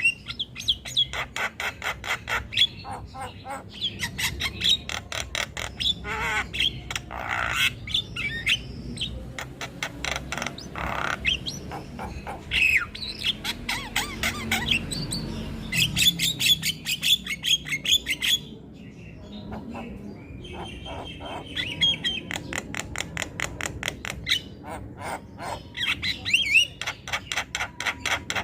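Javan mynas (jalak kebo) calling loudly in a long run of fast, harsh chattering rattles mixed with short whistled notes and squawks, dropping off briefly about two-thirds of the way in before starting up again.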